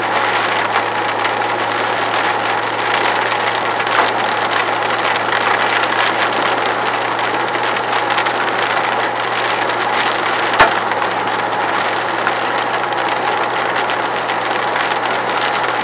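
Hail and heavy rain hitting a car, a dense steady patter of small impacts with a low engine hum underneath. One sharp knock stands out about ten and a half seconds in.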